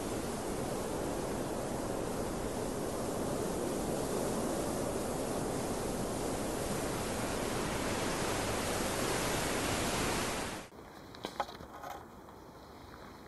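Steady, even rushing noise that cuts off abruptly about eleven seconds in, followed by a few faint rustles and light knocks.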